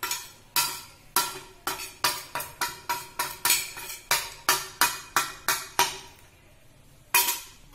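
Steel spoon clinking and scraping against a steel plate while mixing dry spices, about four quick clinks a second. The clinks stop about six seconds in, with one more clink a second later.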